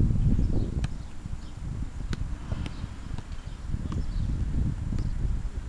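A football being juggled, with sharp taps of the ball against foot, thigh or head about once a second, over a steady low rumble of wind on the microphone.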